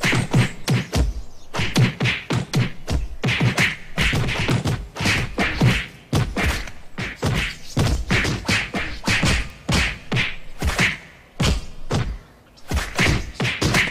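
Cartoon punching sound effects: a rapid, unbroken flurry of whacks and thuds, several hits a second, with brief pauses twice.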